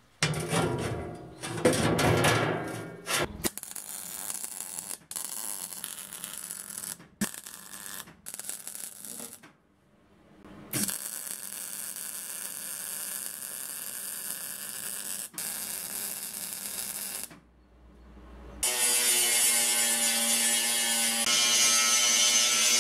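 Sheet-metal work in several short cuts: choppy, loud tool and handling noise at first. Then a MIG welder's steady crackling hiss as it welds steel plates. Near the end an angle grinder cuts sheet steel, its motor running with a steady whine.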